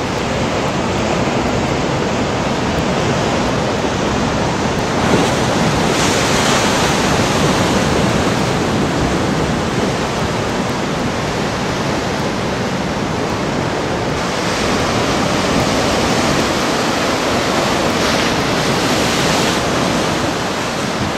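Ocean surf breaking over and washing around rocks at the shore: a continuous loud rush of water, swelling into louder surges a few times as waves break.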